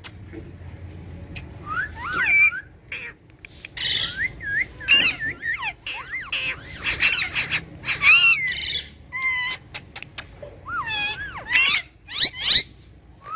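Pet talking parrots chattering and whistling, with warbling, speech-like calls, rising and falling whistles and short squawks in quick bursts.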